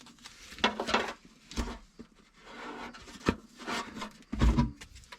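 Tape being pulled, laid over a rust hole in a car's trunk floor and rubbed down: scattered, irregular rubbing and rustling strokes with a dull thump near the end.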